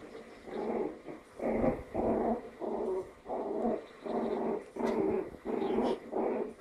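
Maltese puppy growling in short repeated bursts, about one and a half a second, while tugging at a toy in play.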